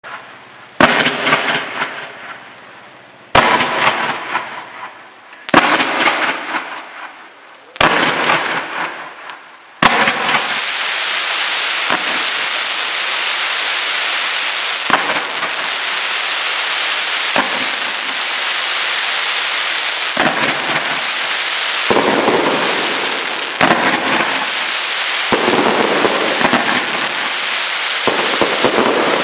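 Fireworks cake firing: five sharp shots about two seconds apart, each followed by fading crackle, then from about ten seconds in a continuous dense crackling hiss broken by occasional sharper bangs.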